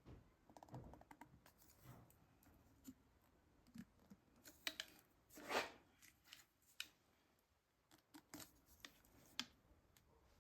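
Faint scattered clicks and short scrapes of plastic pipe fittings being handled, with one louder half-second scrape about five and a half seconds in.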